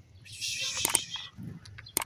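Subscribe-button animation sound effects: a short hissing noise, then sharp mouse clicks near the end as the button is clicked.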